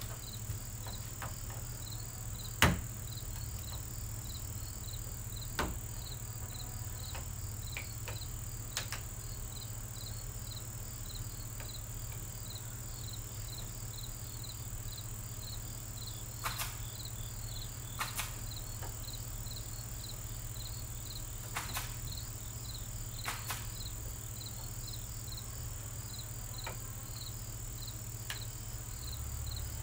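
Crickets chirping steadily at about two chirps a second, over a steady low hum. Occasional sharp knocks and clicks break in, the loudest about two and a half seconds in.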